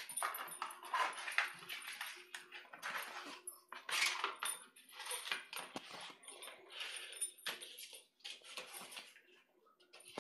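A plate scraping and knocking across a tiled floor as a pug puppy chases and shoves it, in an irregular run of short scrapes and clatters with brief pauses.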